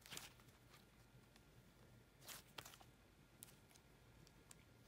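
Faint squishing and crackling of slime being kneaded and stretched by hand: a short burst near the start, two more about two and a half seconds in, then a few small clicks.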